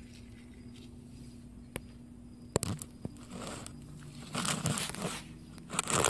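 Dry rustling and scraping in irregular bursts, preceded by a few sharp clicks; the rustling grows louder from about halfway in.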